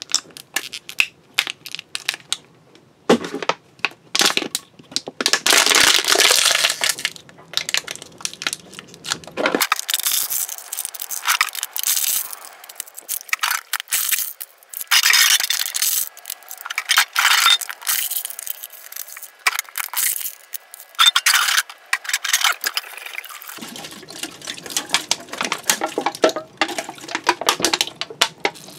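Hands washing rubbish in a sink: plastic bottles and Ziploc bags crinkle and crackle, and tin and aluminium cans clink against each other, in a string of short irregular bursts.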